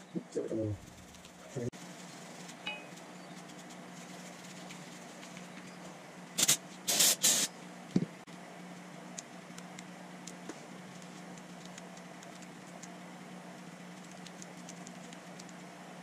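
Several short hissing bursts of pressurised spray, about four in quick succession a little past the middle, while brake caliper parts are being cleaned, followed by a single sharp knock, over a steady low hum.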